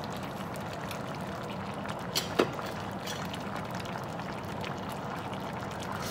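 Pot of fish and cabbage stew simmering, bubbling steadily over a low hum, with two quick clinks of a metal spoon on the pot about two seconds in.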